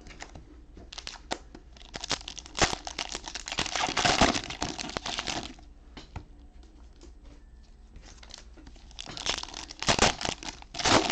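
Cellophane wrappers of trading-card packs being torn open and crinkled: two stretches of crackling with sharp clicks, one about two seconds in and another near the end.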